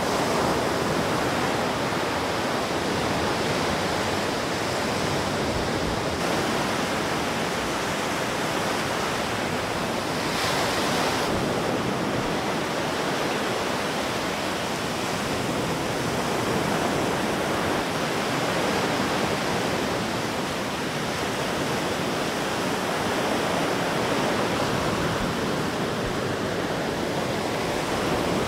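Hurricane Beryl's storm noise: a steady, unbroken rush of wind and water.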